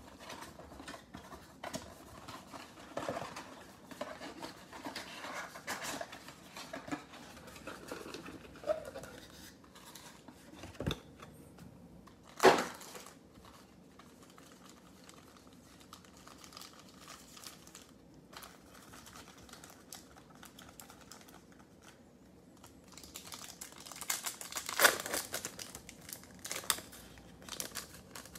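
Cardboard box flaps and foil trading-card packs being handled with crinkling, and a sharp snap about twelve seconds in. Near the end, the loudest crinkling and tearing as a Panini Select foil pack is ripped open.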